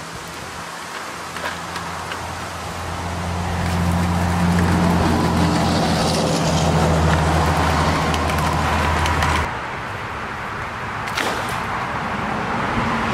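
A motor engine's low hum, steady in pitch, growing louder over several seconds and stopping abruptly about nine and a half seconds in, over a steady rush of noise, with a few sharp knocks.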